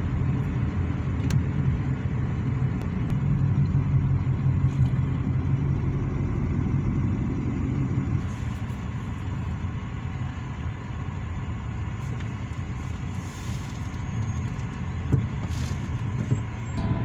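Car rumble heard from inside the cabin while creeping along in heavy traffic: a steady low engine and road rumble that eases a little about halfway through.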